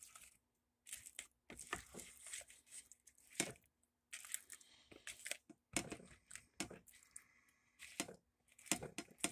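Silicone spatula stirring sauce-coated air-fried tofu cubes in a mixing bowl: soft, irregular scrapes and taps against the bowl.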